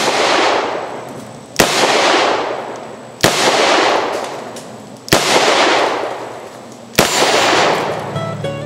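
Charter Arms Bulldog .44 Special compact five-shot revolver fired four times, the shots roughly two seconds apart, each followed by a long fading echo.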